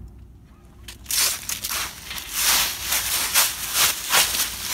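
Footsteps crunching through dry fallen leaves, starting about a second in, with a crunch roughly every half second.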